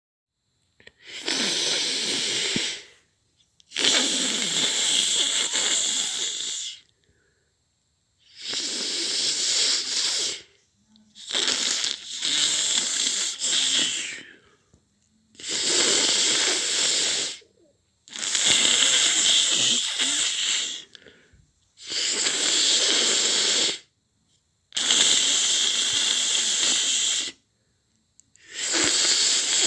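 Noo Noo's snoring sound effect, the snore of the Teletubbies' vacuum-cleaner character: long, hissing, wheezy snore breaths, about ten of them, each two to three seconds long with a short silence between.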